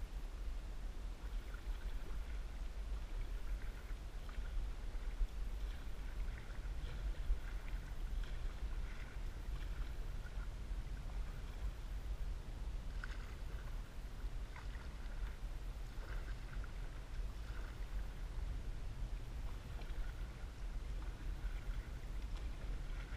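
Water lapping and trickling against a canoe's hull as it is paddled across a lake, in small irregular splashes, over a steady low rumble.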